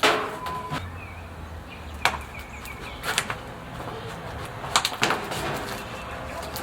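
A handful of sharp knocks and clicks: a loud one at the start, then about four more spread over the next five seconds. Faint bird chirps come through now and then.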